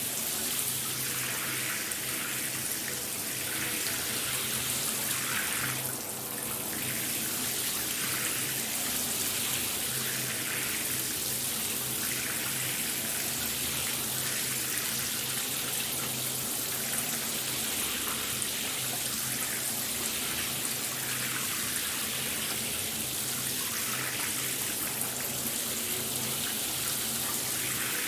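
A shower running: a steady spray of water splashing down, with a faint low hum under it and a brief dip in the spray about six seconds in.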